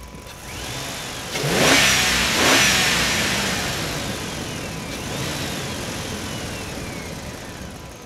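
Truck engine revving hard twice, about a second and a half in and again a second later, then easing off and fading over the next few seconds. A high whine rises and then slides slowly down in pitch several times over the engine.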